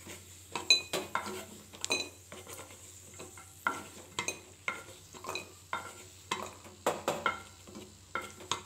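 Wooden spatula scraping and knocking against a kadai holding hot ghee as fried cashews are scooped out, a string of uneven scrapes about two a second with a few short ringing clinks.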